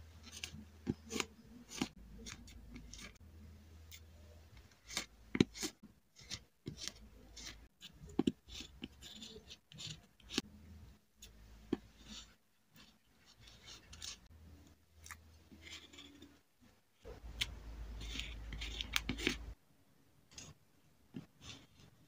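Close-up journaling handling sounds: metal tweezers clicking and tapping as paper stickers are picked up and pressed onto a kraft-paper page, with paper rustling and scratching. Near the end a steadier couple of seconds of rubbing on the paper.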